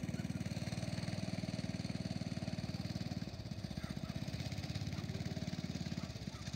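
Small engine of a lure-coursing machine running steadily with a fast, even beat, easing briefly a little after three seconds and again near the end.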